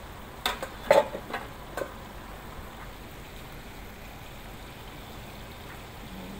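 A quick run of about five clacks and knocks from cooking utensils at the stove, the loudest about a second in, followed by a low, steady hiss.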